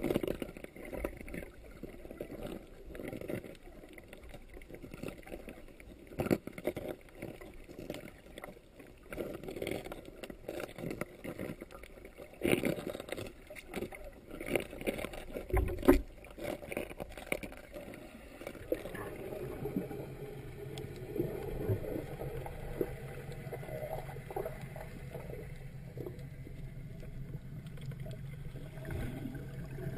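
Muffled underwater sound heard through a GoPro Hero2's sealed dive housing: irregular knocks and clicks with water movement, then a steadier low hum from about two-thirds of the way in.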